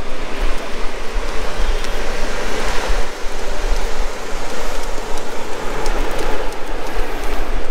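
Wind buffeting the microphone of a camera carried while walking: a steady rushing noise with irregular low rumbling gusts.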